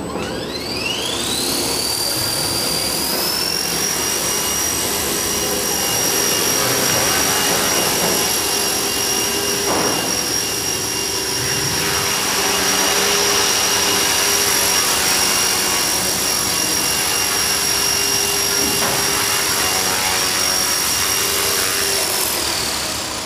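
Small electric RC helicopter's motor and rotors spooling up with a steeply rising whine over the first few seconds. They then run at a steady high whine with rotor hum, and wind down with a falling whine near the end.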